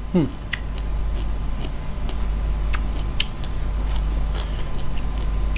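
Close-miked chewing of crunchy green papaya salad: scattered short, crisp crunches and clicks over a steady low hum.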